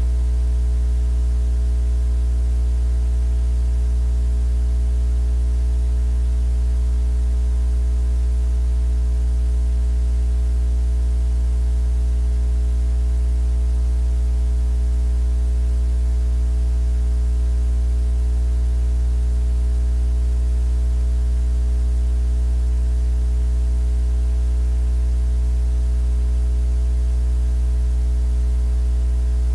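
A steady, loud low hum with a layer of hiss over it, unchanging throughout.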